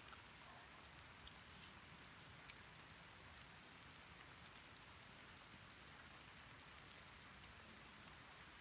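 Faint, steady rain falling in the rainforest, an even hiss with a few scattered drop ticks.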